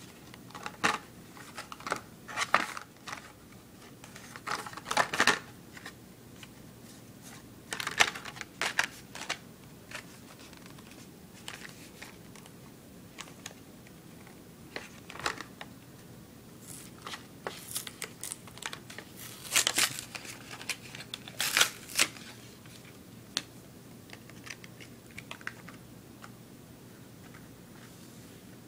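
Hot Wheels blister pack, a plastic blister on a cardboard card, being crinkled, bent and torn open by hand. It comes in irregular bursts of crackling and ripping, with the loudest rips near the middle and about two-thirds of the way in, and only small handling noises near the end.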